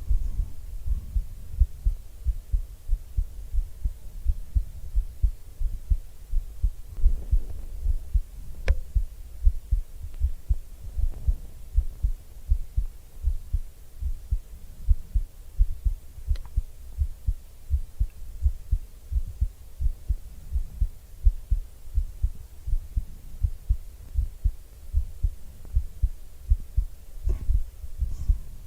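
A person's heartbeat heard close up through an ASMR microphone: a steady, even rhythm of deep double thumps, with a few faint clicks.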